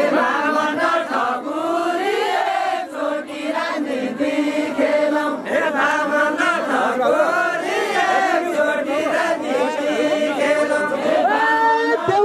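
A group of men singing a Deuda folk song together, many voices overlapping in a chorus.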